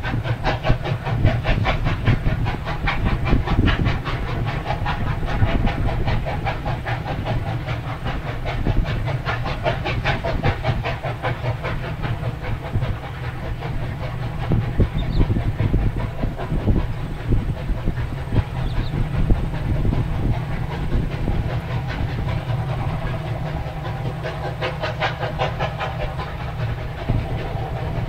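A passenger train's carriages and trailing diesel locomotive rolling past, the wheels clicking and rattling over the rail joints in a quick, regular pattern. Strong wind rumbles on the microphone throughout.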